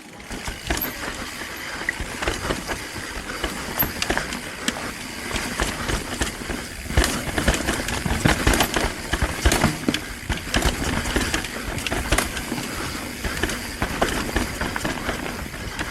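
Mountain bike descending a rough, rocky trail: tyres rolling over rock and roots, with the chain and frame rattling continuously and frequent sharp knocks from impacts.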